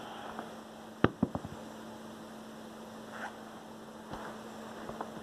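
Knocks and light taps from a pet at play: one sharp knock about a second in, then a quick run of lighter taps and a few soft ticks later, over a steady low hum.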